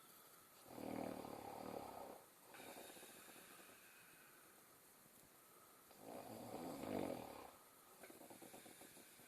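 A person snoring: two loud snores about five seconds apart, each followed by a quieter breath.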